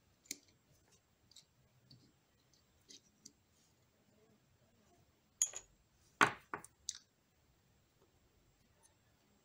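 Light clicks and clinks of small metal parts of a Pentacon 29mm camera lens being handled with a small screwdriver, with a cluster of four sharper clicks a little past halfway.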